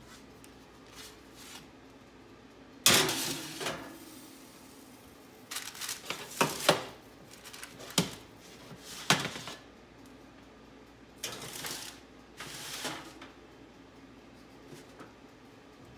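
Metal baking sheets being slid onto an oven's wire racks: a loud clank about three seconds in, then a handful of shorter clatters and scrapes of pan against rack.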